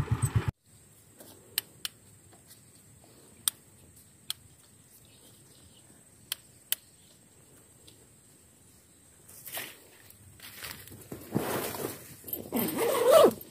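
Rustling of clothing and grass as a hunter shifts and handles his gear in tall grass, the loudest stretch near the end. Before that, a few sharp single clicks over faint background.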